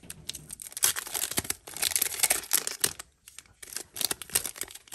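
Baseball-card pack wrapper crinkling and tearing as hands struggle to pull it open, in irregular crackles with a short pause a little past the middle.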